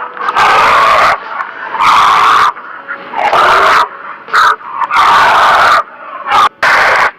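Bear growling in a series of about seven loud, rough bursts of uneven length, some nearly a second long and others brief.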